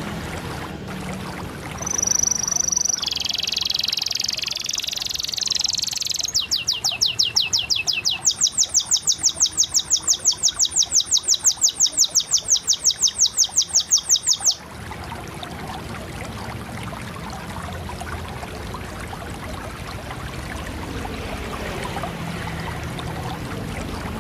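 Canary singing: a high warbling phrase, then a long fast trill of evenly repeated notes, about six a second, that stops suddenly a little past halfway. After it only a steady low background hiss remains.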